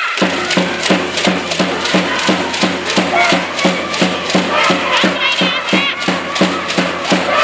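A cheering section in a sports hall starts up suddenly, beating a fast, steady rhythm of about four hits a second on percussion, with chanting voices over the beat.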